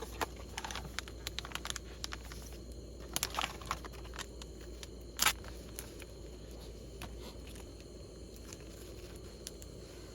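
Scattered small clicks and crackles over a steady outdoor background hiss, with a brief cluster of clicks about three seconds in and one louder click about five seconds in.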